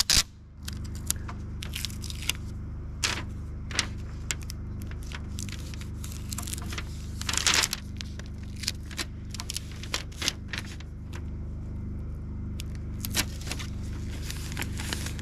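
Tyvek house wrap sheeting rustling and crinkling in short scratchy sounds as it is cut with a utility knife and folded around a door's metal straps to mask them for paint, with a longer rustle about halfway through. A steady low hum runs underneath.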